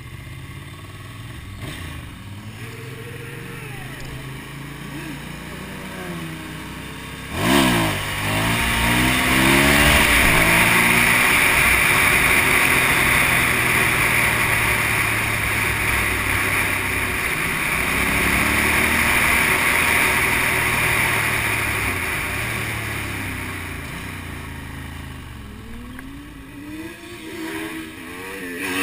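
Motorcycle engine running at low revs, then revving up sharply about seven seconds in and pulling hard through the gears, with wind rushing over the helmet microphone at speed. It eases off later, with revs rising and falling again near the end.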